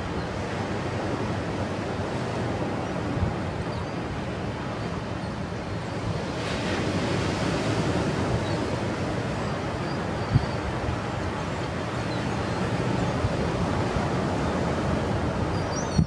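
Ocean surf breaking with steady wind noise on the microphone, and a few faint, distant seagull calls.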